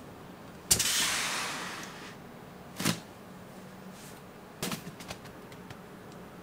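A cardboard shipping box is set down with a thud, followed by a fading rustle lasting about a second. There is another knock a couple of seconds later, then a few lighter taps and knocks as the box is picked up and turned.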